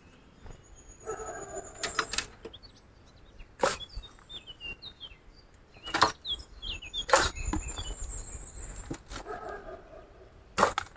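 Shovel cutting into soil and throwing it into a wheelbarrow: a sharp scrape or thud every second or two, about six in all. Birds chirp briefly a few seconds in.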